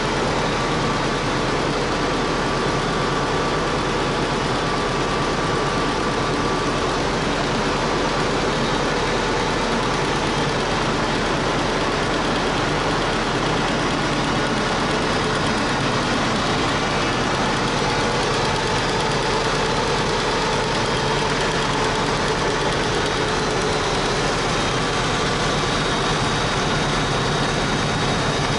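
Rotax engine of a homebuilt helicopter running steadily at a constant speed, with no revving up or down.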